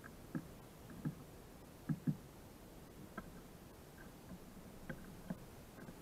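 A small black-capped tit pecking at food on a log: irregular dull knocks, about seven in all, the loudest a quick pair about two seconds in.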